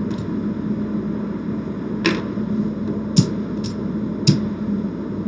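Casino chips clicking against each other as they are picked up and stacked on a craps table, a handful of sharp clicks at uneven intervals over a steady background hum.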